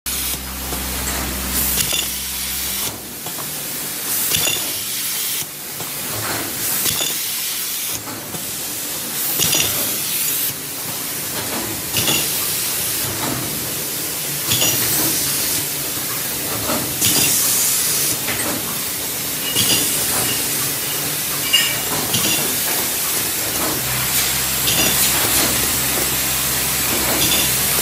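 Automatic carton folding and gluing machine running. Short hisses of air come about every second or so over its steady running noise, with a low hum in the first few seconds and again near the end.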